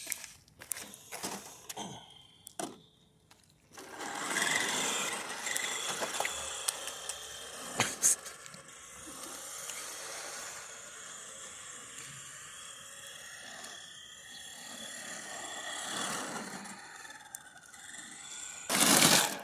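Small electric motor and gears of a Hot Wheels 1:10 RC Cybertruck whirring steadily as it drives on asphalt, louder when it sets off about four seconds in and fainter as it goes on. Clicks and knocks of the truck being handled come first, and a brief loud rush sounds near the end.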